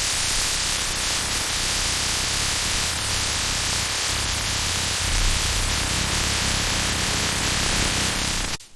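Loud, steady hissing noise with a low rumble under it, cutting off abruptly near the end.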